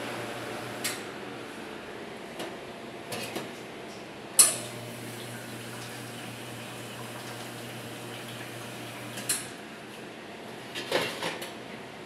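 Espresso machine being test-run: water flushes from the group head into a stainless steel pan over a steady low pump hum, with sharp metallic clanks, the loudest about four seconds in. The hum stops with a click about nine seconds in, and the steel pan clatters near the end as it is handled.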